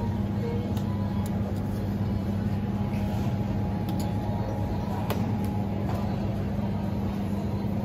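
Steady low hum of a supermarket refrigerated display case's cooling fans and compressor, heard up close, with a few faint clicks.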